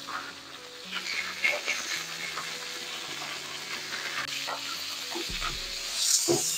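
Beef steaks frying in butter with garlic and thyme, sizzling in a skillet, with occasional light clicks of metal tongs as pieces are lifted out. The sizzle grows louder a little past the middle.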